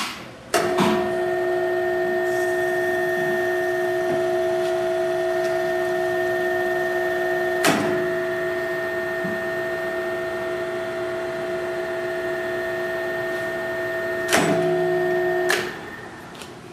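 Drill tap machine's electric motor humming steadily as it drives three taps, with a sharp click about halfway through and another near the end, then the motor stops.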